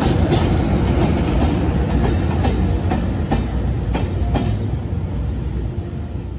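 JR Freight EH200 twin-section electric locomotive rolling slowly past close by: a low rumble with scattered sharp clicks from the wheels on the track, fading near the end as it moves away.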